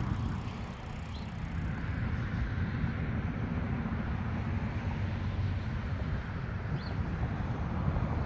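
Wind buffeting the microphone, a steady low rumbling noise, with two faint short high chirps, one about a second in and one near the end.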